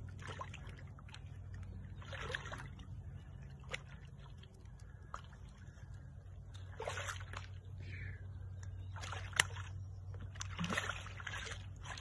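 Shallow water splashing and sloshing in short, irregular bursts as a large channel catfish is gripped by hand in the water at the bank, over a steady low hum.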